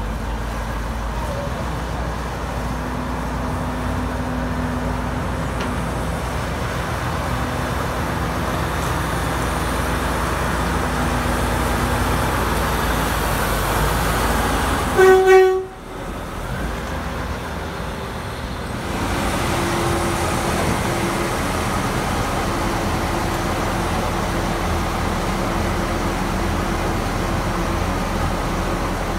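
Diesel shunting locomotive's engine running steadily while moving, with a brief loud horn toot about halfway through.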